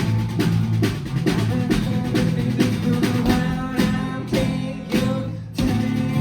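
Live rock'n'roll band playing an instrumental passage: a drum kit beating about three hits a second over bass and electric guitar, with a short break about five and a half seconds in before the full band comes back in.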